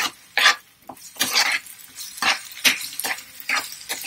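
Spatula stirring and scraping chopped onions and tomatoes around a non-stick kadai, in short strokes about two a second, as the vegetables fry.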